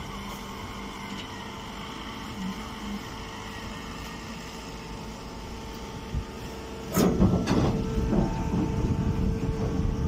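Hydraulic straw compression baler running with a steady electric hum. About seven seconds in, a loud rustling, crackling noise starts and goes on for around three seconds.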